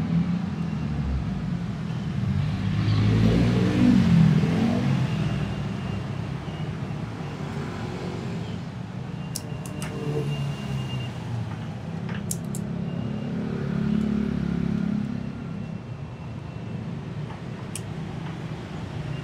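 Motor vehicle engine hum, swelling about three seconds in and again near fifteen seconds as vehicles pass by, with a few sharp clicks in between.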